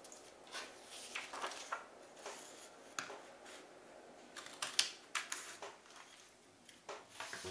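Decorative paper rustling and the clicks of a plastic hand-held heart paper punch, with the sharpest snaps a little past halfway as the punch is pressed through the paper.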